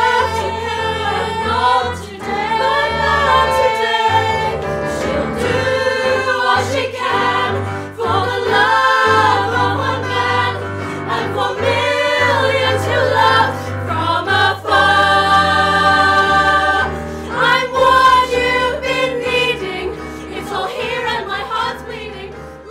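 Musical theatre ensemble singing a show tune in several voices over instrumental accompaniment with a steady bass, with long held notes in the middle.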